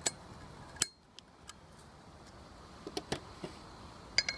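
Small metal clicks and clinks of a steel circlip being worked into a brake drum's wheel bearing bore with circlip pliers. The sharpest click comes just before a second in, and a quick cluster near the end leaves a short metallic ring.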